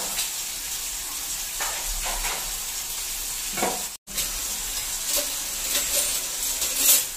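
Kitchen tap running a steady stream into a stainless steel sink, with a few sharp clinks of steel utensils being hung on a wall rack. The sound cuts out for an instant about four seconds in.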